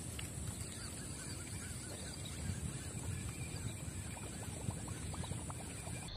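Many short chirping calls of wetland animals over a steady low rumble, with a run of light ticks and clicks near the end.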